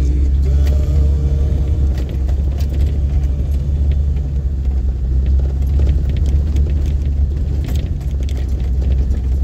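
Engine of a 4x4 heard from inside its cab, a steady low drone as it drives slowly along a rough dirt track, with scattered clicks and rattles from the cab.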